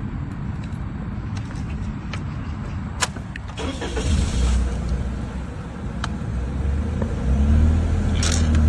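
Low, continuous rumble of a motor vehicle, with a single sharp click about three seconds in. Near the end the rumble turns louder and steadier, with a low hum.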